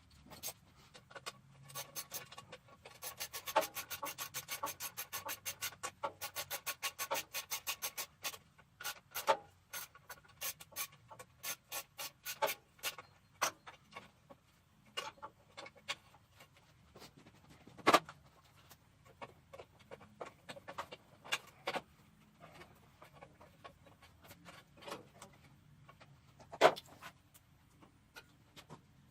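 Rapid scraping strokes for about five seconds, then scattered clicks and knocks, two of them louder.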